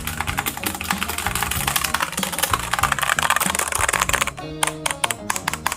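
Cosmic Byte Pandora mechanical keyboard being typed on, with rapid key clicks that thin out to slower single key presses about four seconds in. Background music plays underneath.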